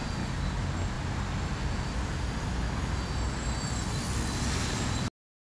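Vector 450 VTOL model aircraft's electric motors and propellers running in flight, a faint high whine over steady wind rumble on the microphone, growing brighter toward the end. The sound cuts off abruptly about five seconds in.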